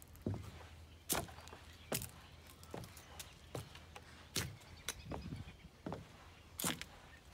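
Footsteps on wooden deck boards at a steady walking pace, about one step a second, with dry fallen leaves crunching underfoot.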